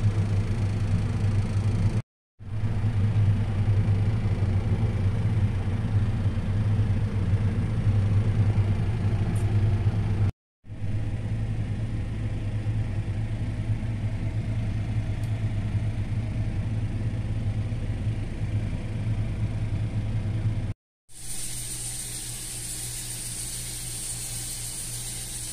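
A steady low machine hum that breaks off for an instant twice. Near the end it gives way to a quieter steady hiss.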